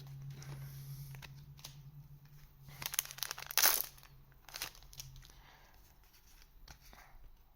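Rustling and crinkling as a trading-card booster pack's foil wrapper and cards are handled, in short bursts with the loudest crinkles about three to four seconds in, over a steady low hum.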